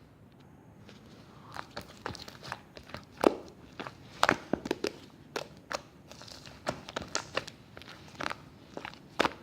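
Slime being squeezed and kneaded by hand, giving irregular sticky clicks and pops that start about a second and a half in and come thick and fast after that.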